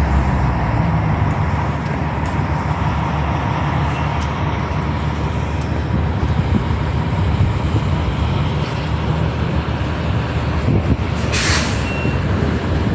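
Fire trucks' diesel engines running with a low, steady rumble, and a short air-brake hiss near the end.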